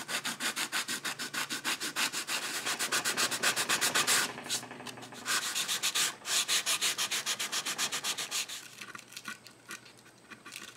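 Sandpaper rubbed by hand over the finish of a wooden clock case in quick back-and-forth strokes, about five a second. The strokes pause briefly about four seconds in and grow fainter near the end.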